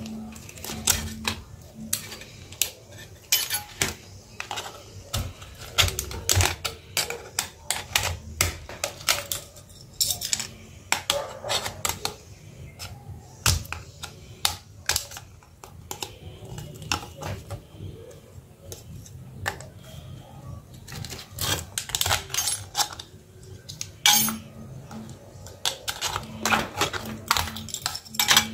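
A metal pry tool clicking, tapping and scraping against a Micromax Q301 smartphone's plastic frame and loose metal shield plates as the phone is taken apart, in irregular sharp clicks throughout.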